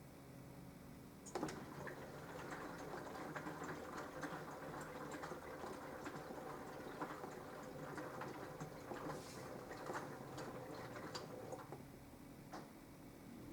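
Minicolo mini washing machine at work: water sloshing and splashing in the drum with many small ticks and a faint steady hum. It starts suddenly about a second in and stops shortly before the end.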